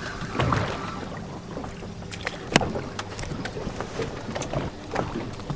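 Steady open-water background aboard a small boat, with wind on the microphone, broken by a few short sharp clicks and taps.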